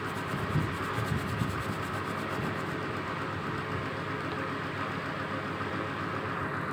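Steady background rumble and hiss.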